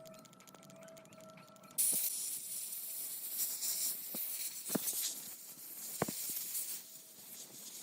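A spray hiss that starts suddenly about two seconds in and runs for about five seconds, with a few sharp clicks partway through.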